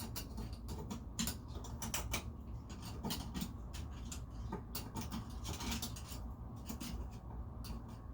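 Irregular small clicks, taps and scrapes of faucet and pipe parts being handled and worked on, over a steady low hum.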